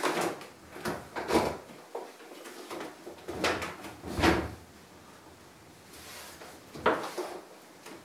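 Indesit washing machine being shoved and worked into a tight cupboard: a few separate scrapes and knocks of its casing and feet, the loudest about four seconds in and another sharp one near the end.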